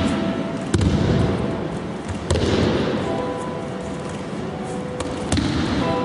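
Thrown partners hitting the mats in breakfalls: three sharp slaps, each with an echo, about a second in, a little after two seconds and near the end. Background music with steady held notes plays throughout.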